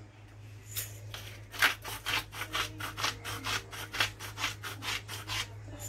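Salt mill being twisted over the jug, grinding salt in a run of short gritty rasping strokes, about three to four a second, that stop shortly before the end.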